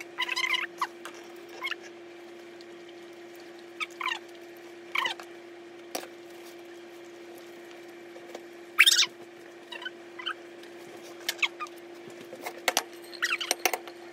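Short squeaks, scrapes and clicks of a knife and fork working against a cutting board as cooked chicken is cut, the loudest a sharp scrape about nine seconds in. A steady low hum runs underneath.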